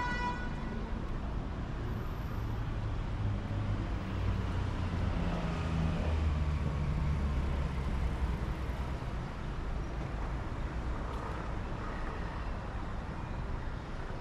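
Street traffic with a motor vehicle's engine hum swelling as it passes close, loudest about halfway through. A short steady beep sounds at the very start.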